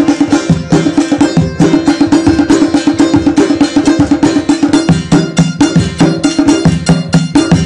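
Traditional folk music played live: a long-necked lute strummed over a frame drum and a pair of small drums struck with a stick, keeping a fast, even beat.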